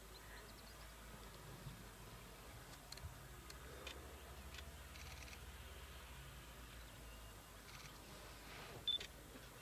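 Quiet outdoor ambience: a faint low rumble with scattered soft ticks, and a short high chirp with a click near the end.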